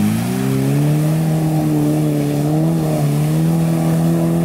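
Suzuki 4x4's engine revving hard and held at high revs as it ploughs through deep water and mud. The pitch dips briefly right at the start, then climbs and holds with a slight waver, over the spray of churned mud and water.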